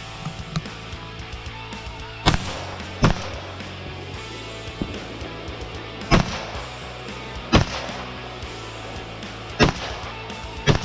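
Six rifle shots at uneven intervals, the first two under a second apart and the rest one to two seconds apart, each with a short echo. Background music plays underneath.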